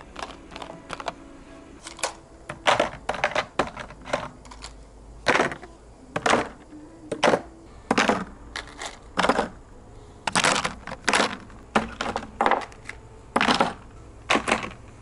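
Small glass contact lens vials clinking as they are set down one by one into a tray of other vials: irregular sharp clinks, several ringing briefly.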